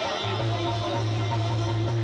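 Instrumental music from a folk stage-show band, dense and steady, over a held low bass note.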